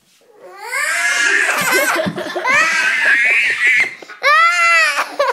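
Young child shrieking with laughter in a run of high-pitched squeals, with one long loud squeal a little past four seconds in.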